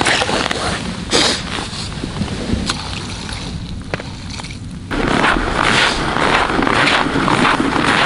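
A small perch dropped back down an ice-fishing hole with a short splash about a second in, then a stick stirred in the slushy hole. About five seconds in, a louder rough noise with a beat of two or three a second suddenly takes over.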